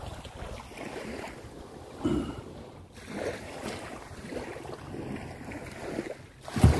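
Small waves washing up over sand at the water's edge, with wind buffeting the microphone and a loud low thump near the end.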